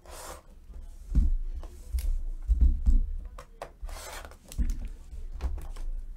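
A locking Panini Flawless briefcase being unlocked with its key and opened. There are scrapes and sharp clicks at the lock and latches, and dull thumps as the case is shifted on the table. A longer scrape comes about four seconds in as the lid swings up.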